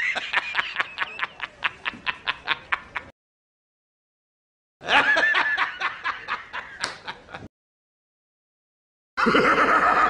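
Cartoon laughter sound effect: a rapid, high-pitched 'hahaha' laugh at about five ha's a second that fades and cuts off about three seconds in. A second burst of the same quick laughter starts about five seconds in and lasts over two seconds. Near the end a different, denser sound starts.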